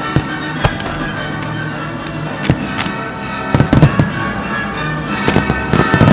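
Fireworks firing over a pyromusical soundtrack: a few single aerial shell bangs early on, then a rapid cluster of bangs about three and a half seconds in and another near the end, with the music playing steadily underneath.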